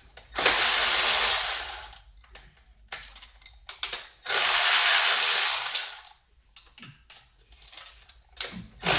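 A powered ratchet running in bursts of about two seconds, twice, with a third starting near the end, spinning fasteners loose.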